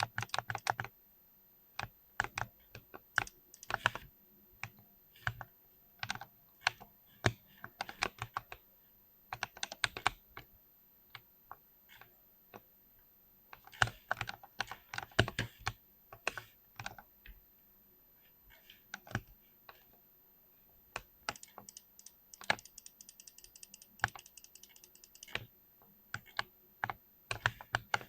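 Typing on a mechanical keyboard with Cherry MX Silver linear switches: bursts of quick keystrokes separated by pauses of a second or two. A denser run of lighter clicks comes about three-quarters of the way through.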